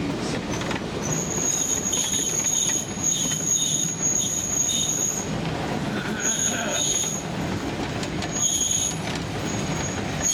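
Narrow-gauge passenger cars rolling behind a Shay steam locomotive, steel wheels rumbling on the rails. A thin, high, steady wheel-flange squeal sets in about a second in and comes and goes in stretches over the rumble.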